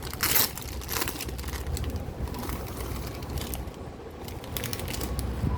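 Handling noise from unpacking jewellery: plastic packets rustling and crinkling, with scattered sharp clicks. The loudest rustle comes just after the start.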